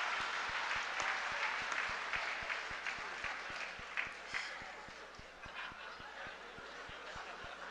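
Large dinner audience applauding and laughing at a joke, the clapping loudest at first and dying down gradually.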